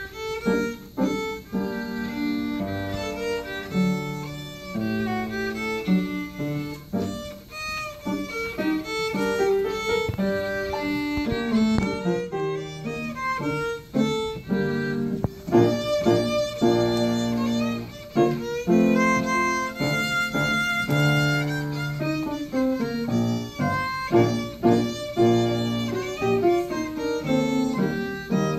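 A violin playing a gavotte with grand piano accompaniment, the piano carrying the low notes beneath the bowed melody.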